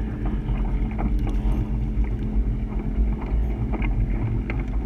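Mercruiser 496 HO big-block V8 boat engine running steadily at cruise as the catamaran moves across the water, a constant low drone with no change in pitch.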